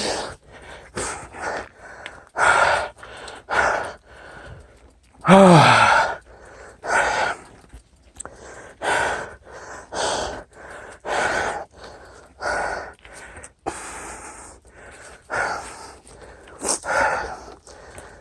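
A man breathing hard, with loud gasping in-and-out breaths about once a second. About five and a half seconds in comes one voiced groan that falls in pitch. This is the heavy breathing of exertion while walking a mountain bike up a steep, rocky climb.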